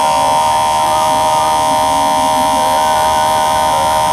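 Cordless electric hair clippers running with a steady, even buzz while trimming short hair at the nape of the neck.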